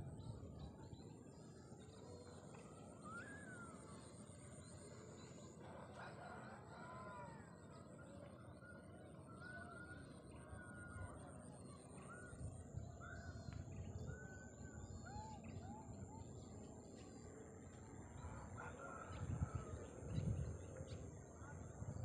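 Faint rural outdoor ambience with scattered short bird calls and chirps over a steady high-pitched whine. Wind rumbles on the microphone in gusts near the end.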